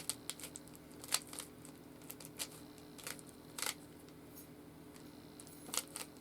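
Plastic Rubik's Cube being twisted by hand through a move sequence, its layers clacking in short, irregular clicks, with a quick cluster of turns near the end.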